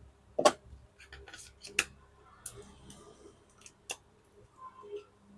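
A few sharp, separate clicks with light scraping and handling noise between them, from small plastic and metal laptop parts being handled while a SATA SSD is readied for fitting.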